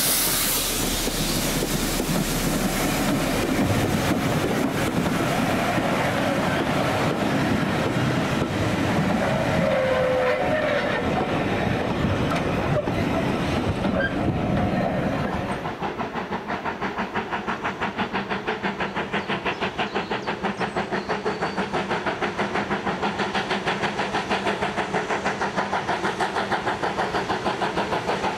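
Steam tank engine Taff Vale Railway No. 85 passing close by, its carriages rolling and clattering over the rail joints. About halfway through this gives way to the fast, even exhaust beat of BR Standard Class 2 steam locomotive No. 78022 working its train.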